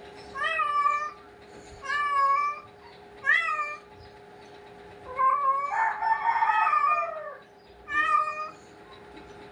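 Calico cat meowing repeatedly: five calls about a second or so apart, the fourth drawn out into a longer, louder meow lasting over two seconds.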